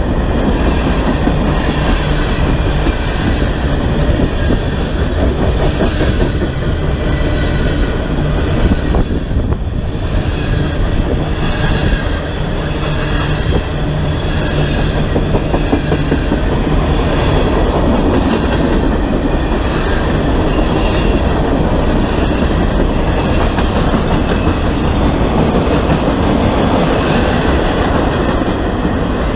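Cars of a BNSF train rolling past close by: a steady, loud noise of steel wheels on rail, with faint high-pitched tones wavering through it.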